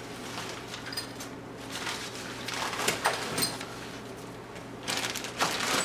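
Waxed paper crinkling and rustling as it is unwrapped from surplus rifle tools, with a few light clicks and clinks of small metal parts being handled.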